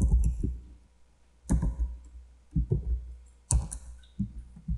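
Computer keyboard typing in several short bursts of keystrokes with pauses between, each key press a sharp click with a dull thud.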